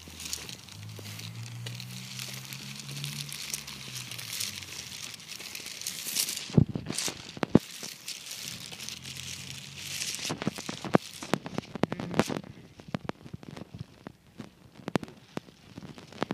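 Crinkling, crackling handling noise from a handheld phone being carried on a walk, with a low hum in the first few seconds and many sharp clicks and knocks from about six seconds in.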